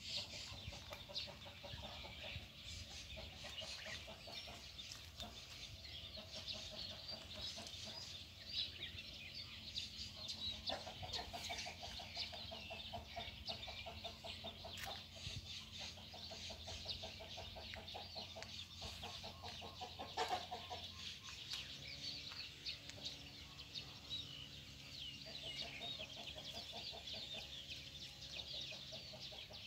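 Chickens clucking faintly in short bouts, over a steady high chirping of birds.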